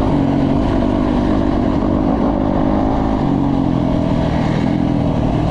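Dirt bike engine running hard under a rider, its note shifting as the throttle is worked, about three seconds in.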